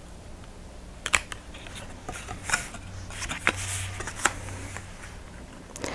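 Cardstock being handled on a craft mat: a few short taps and paper rustles, spaced out over several seconds, as a piece of card is lined up and the folded card is opened.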